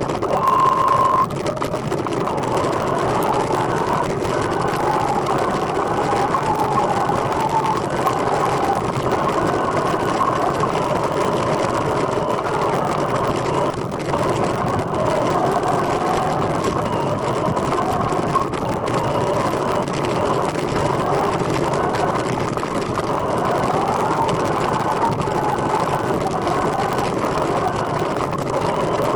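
Steady rolling noise of a recumbent trike being ridden, with a faint whine that wavers up and down in pitch. A short steady beep-like tone sounds about half a second in.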